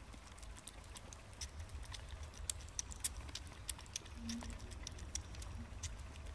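Kitten lapping milk from a spoon, its tongue making quick, irregular small clicks, quiet throughout.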